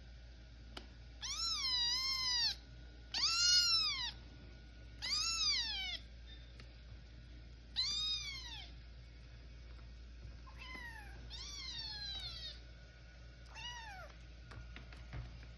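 Kitten meowing: about seven separate high meows, each rising and falling in pitch, the first few louder than the later ones.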